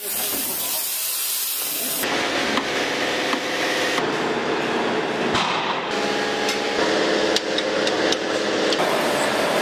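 Mechanics' hand tools clanking and knocking on the steel parts of a van being stripped down, a few sharp metallic strikes over a steady workshop hiss. The background changes abruptly about every two seconds.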